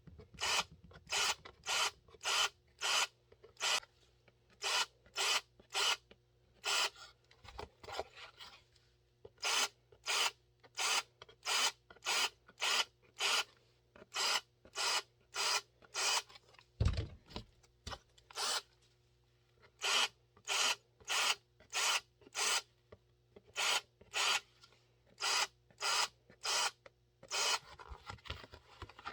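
Hand tool scraping in quick rhythmic strokes, cleaning up and deburring freshly drilled holes in Kydex holster plastic. The strokes come in runs of several, about one and a half a second, with short pauses between the runs.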